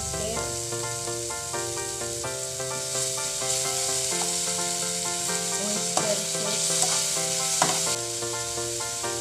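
Julienned carrots sizzling in a nonstick frying pan while a metal ladle stirs them, with a couple of sharp clinks of the ladle against the pan in the second half. Background music with a melody plays throughout.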